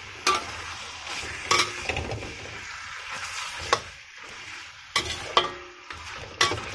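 Thinly sliced beef, onion and garlic sizzling in a hot pan as they are stir-fried, with a spatula clacking against the pan several times as it stirs.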